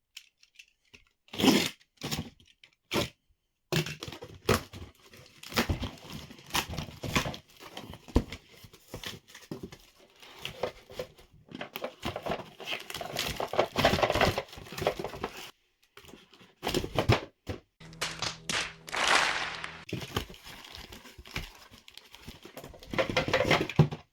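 Unpacking a package: irregular crinkling and tearing of packaging, with scattered clicks and knocks as things are handled.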